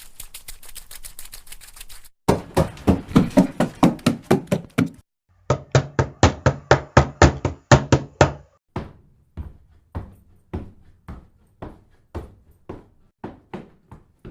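Running footsteps in several short takes: quick light steps for about two seconds, then heavy steps about four a second, then another run at a similar pace over a low hum, then fainter, slower steps about two a second.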